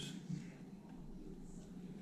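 Faint, soft rustling and sliding of trading cards being handled, over quiet room tone.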